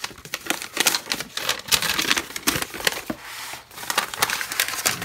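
Folded paper instruction sheets being handled and unfolded by hand: rustling and crinkling paper with many irregular crackles.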